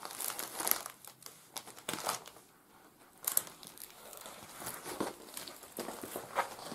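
Crinkling and rustling of a plastic-covered diamond painting canvas being handled and turned over, in short scattered rustles with a quieter pause around the middle.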